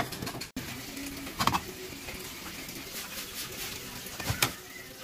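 A few sharp clicks and knocks from kitchen handling: one about a second and a half in, then a short cluster of clicks near the end as the control knob of a portable butane gas stove is turned to light it.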